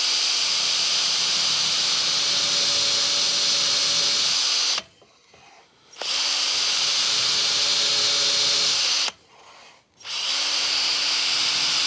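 Cordless drill, mounted in a drill guide, running at a steady speed as it bores holes into a wooden board. It stops about five seconds in, runs again for about three seconds, stops, and starts once more near the end.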